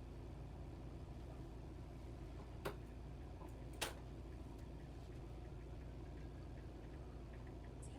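Two short, sharp clicks about a second apart, over a steady low hum.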